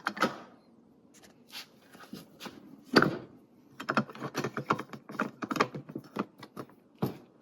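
Hard plastic parts of a Husky Build-Out toolbox being worked by hand: a series of clicks and knocks, loudest about three seconds in, followed by a run of quicker clicks. The parts are stiff and very tight to move.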